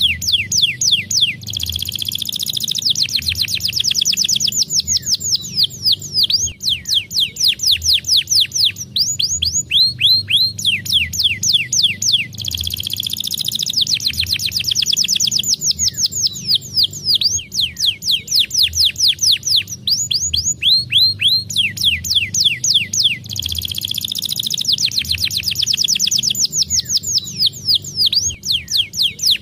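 Domestic canary singing a fast, tight song of rapid downward-sweeping trill notes, one quick run after another. The same song pattern comes round again about every eleven seconds.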